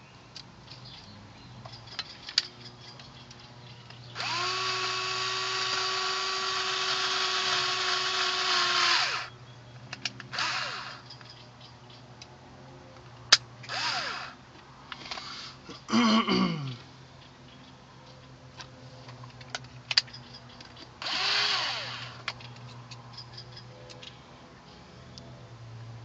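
Power drill driving screws to fasten a speaker to its mounting bracket: one steady run of motor whine lasting about five seconds, then several shorter bursts, one winding down in pitch, with a few sharp clicks between.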